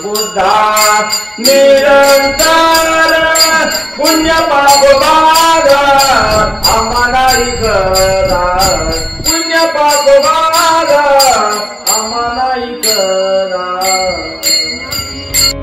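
Men singing a Marathi devotional bhajan in long, wavering held notes over a steady ringing metallic beat.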